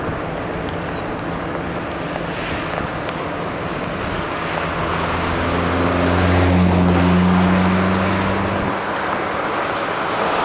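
Steady road and wind noise of a moving vehicle, with a low engine drone that swells about halfway through and cuts off suddenly a couple of seconds before the end.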